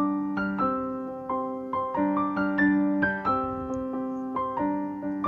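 Background music: a piano playing a slow, gentle melody over held low notes.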